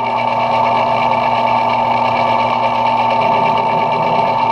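Belt-driven metal lathe running steadily while turning brass stock, with a constant whine.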